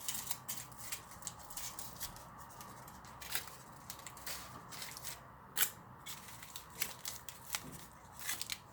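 Aluminium foil being handled and shaped: irregular crinkling and crackling clicks, with a few sharper snaps about three and five and a half seconds in.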